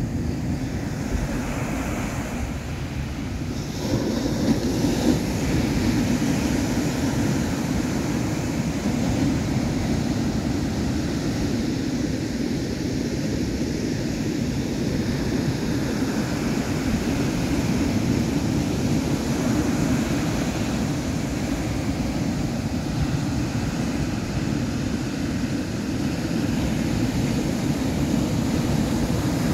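Ocean surf breaking and washing up the beach as a steady rumble, with wind buffeting the microphone; the noise gets louder about four seconds in.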